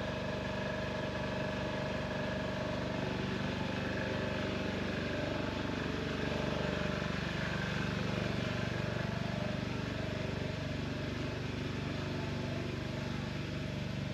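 Bus engines running: a steady engine hum whose pitch shifts about five seconds in.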